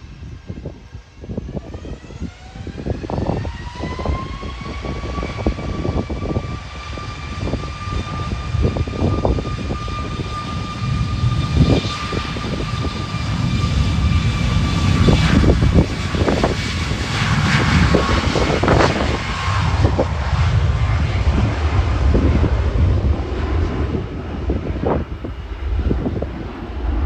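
A twin-engine jet airliner's engines spool up for takeoff: a whine rises in pitch over the first few seconds, then holds steady. A deep rumble builds and stays loud as the jet accelerates down the runway.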